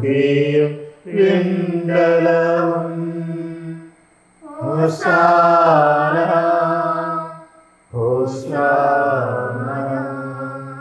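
A man's voice chanting a Malayalam sung-Mass text, long held notes in phrases of two to three seconds with brief pauses between them.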